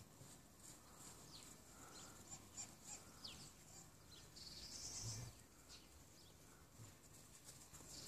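Near silence: faint outdoor ambience with a few short, faint high chirps and a soft crunchy hiss about five seconds in.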